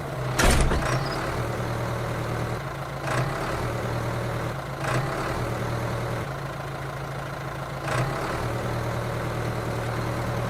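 An engine idling steadily with a low hum, with a few short knocks scattered through.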